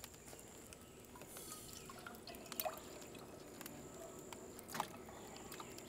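Faint dripping and liquid sounds with a few soft scattered clicks, the loudest about five seconds in.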